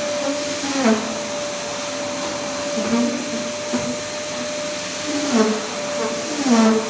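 Single-disc rotary floor machine running steadily as it shampoos carpet: a constant motor noise with a steady whine through it. A few short falling tones come and go over it.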